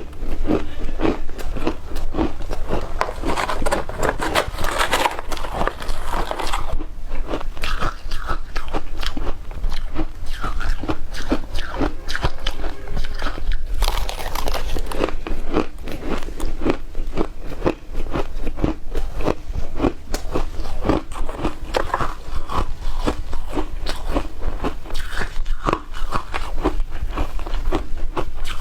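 A person biting and chewing shaved ice dusted with milk powder: continuous rapid crunching.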